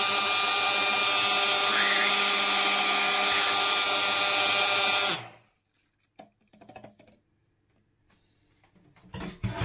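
Immersion blender running steadily in a plastic jug, puréeing soup with dumplings, potato and carrot; it stops about five seconds in, its pitch falling as it winds down. A few faint knocks follow, then a louder clatter near the end.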